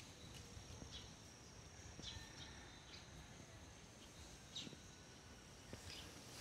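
Faint outdoor field ambience: a steady high insect buzz with a few short, scattered bird chirps.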